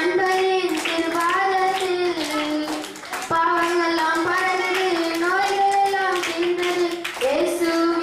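A group of children singing a song together in unison, with a short pause between phrases about three seconds in.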